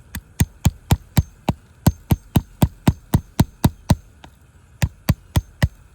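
Hammer tapping lightly and quickly on a tool held against a three-tab asphalt shingle, about four sharp strikes a second with a short pause about two-thirds through, to break the shingle's adhesive seal bond.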